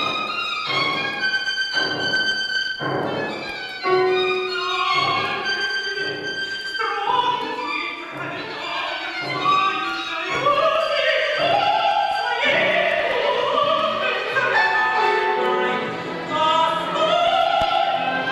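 Mezzo-soprano singing with a chamber string orchestra and solo violin: classical music.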